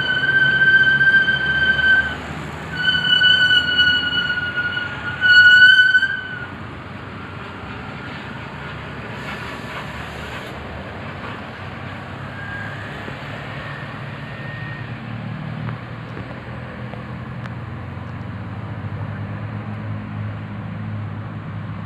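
A bus's telolet air horn sounds three loud blasts on one high note, the first two about two seconds long and the third shorter and rising slightly. After that the bus's engine runs with a low, steady rumble.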